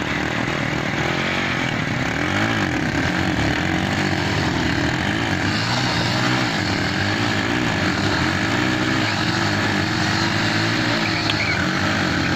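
Two 70cc motorcycle engines revving hard under load as the bikes pull against each other on a rope, engine speed swelling and dropping again and again, with a rear tyre spinning in the dirt.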